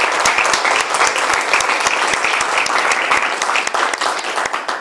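A room of people applauding with steady, dense clapping that fades out at the very end.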